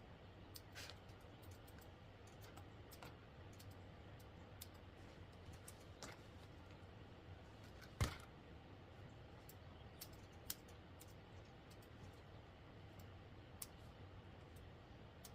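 Faint, irregular snips and clicks of grooming scissors cutting a dog's hair, with one sharper click about eight seconds in.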